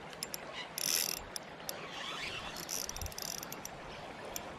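Spinning fishing reel clicking in irregular bursts as a hooked carp is played in toward the bank.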